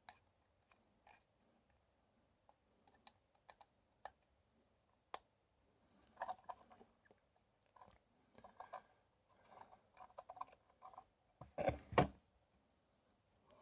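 Scattered small clicks and taps of metal tools on a rebuildable tank atomizer's deck as the coils are screwed down and positioned. They get busier about halfway through, with a louder knock near the end.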